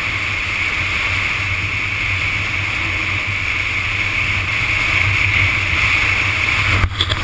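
Steady wind rush and motorcycle engine running at road speed, picked up by a camera mounted on the bike. Just before the end the rush drops suddenly and a few sharp clicks follow.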